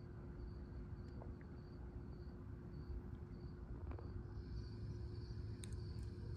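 Faint insect chirping in short, high-pitched pulses about twice a second, turning into a continuous trill for the last couple of seconds, over a low steady rumble and a faint hum.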